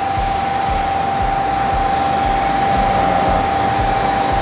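Steady whirring machinery noise with a constant mid-pitched whine, from a fan, pump or similar machine running in the workshop.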